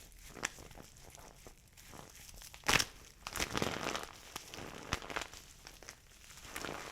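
Dry soap balls being crushed and crumbled: irregular crisp crackling and crunching, with one sharp loud snap about two and a half seconds in.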